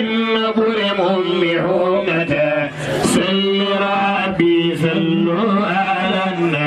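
A group of men chanting a devotional song together in unison, the lead voices amplified through handheld microphones, over a steady low held note.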